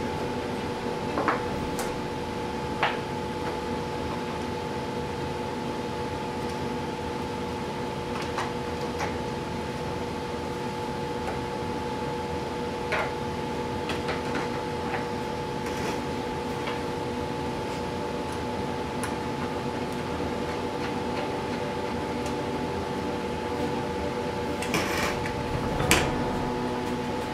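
Steady hum from an unseen machine, with scattered light clicks and knocks of plywood parts and metal bolts being handled and fitted together by hand; a sharper knock comes near the end.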